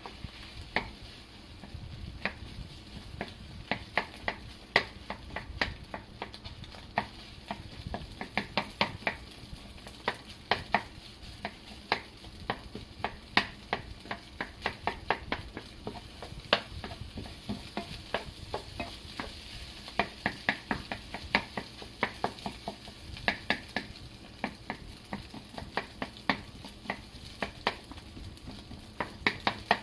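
Wooden spatula tapping and scraping against a nonstick frying pan, stir-frying rice and egg for fried rice, in frequent sharp clicks over a faint steady sizzle.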